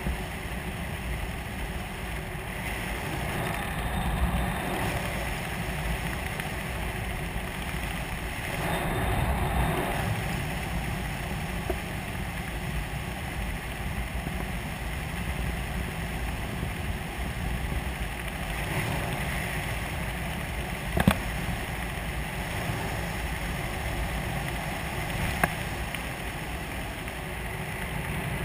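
Steady wind rush on a skydiver's camera microphone during a parachute descent, with two brief sharp clicks in the second half.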